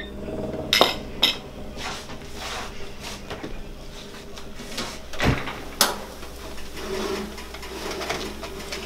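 Metal spatula and baking tray clattering and scraping against a gas oven's rack while food is lifted out, with a few sharp knocks and one heavier low thump about five seconds in.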